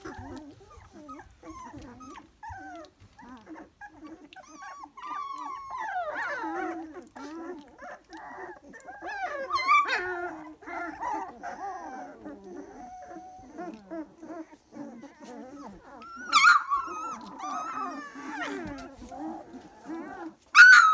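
A litter of three-week-old Dalmatian puppies making many overlapping short whines and squeaks, with a few louder yelps, the loudest near the end.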